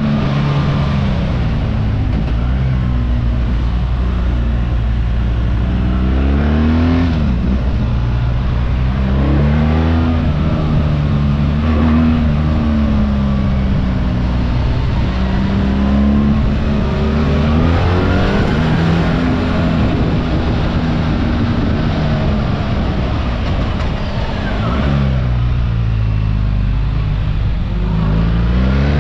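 BMW R 1300 GS boxer-twin engine under way, its pitch rising and falling again and again as the rider accelerates, shifts and slows. A steady rush of wind and road noise runs beneath it.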